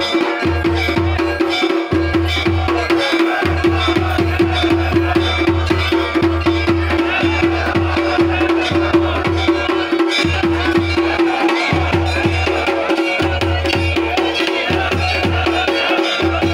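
Fast traditional drumming in a steady rhythm, with deep drum beats and a single held tone sounding throughout.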